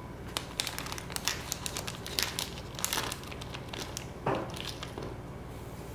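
Small clear plastic zip-lock bag crinkling as gloved hands handle it and open it, with a quick run of sharp crackles over the first three seconds and another rustle about four seconds in.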